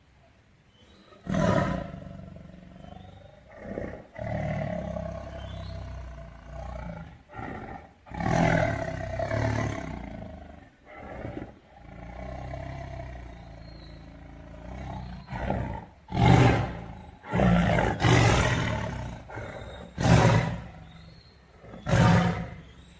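A big cat roaring: a series of loud roars, some a few seconds apart and some in quick succession, with a deep low rumble between them.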